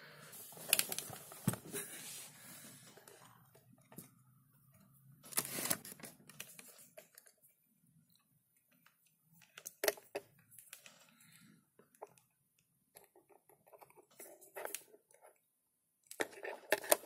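Scattered faint clicks, knocks and rustles of hands handling a small circuit board, test wires and a crocodile-clip lead.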